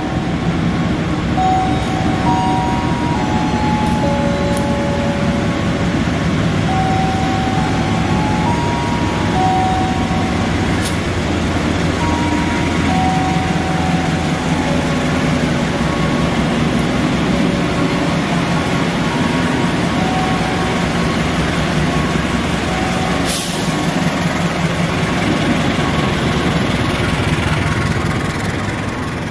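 Diesel locomotive hauling a passenger train out of the station, a steady engine drone with rumble, growing close as it passes beneath and easing near the end as the coaches follow. A simple tune of single held notes plays over it, and there is one sharp clank about 23 seconds in.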